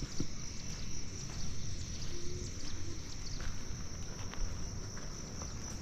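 Insects in the forest keeping up a steady high-pitched drone, over low wind rumble on the microphone and a few faint ticks.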